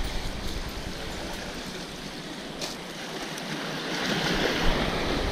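Small waves washing and splashing among the rocks of a jetty: a steady rush of water.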